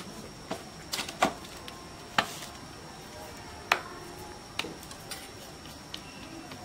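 Irregular sharp clinks and taps of steel plates and utensils and of roti dough being patted between the palms, about eight over the few seconds, one ringing briefly. A faint steady high tone runs underneath.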